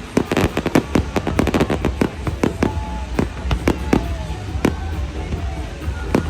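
Fireworks bursting in a display: a rapid run of crackling bangs, then fewer, separate bangs spaced out after about two seconds, with music playing underneath.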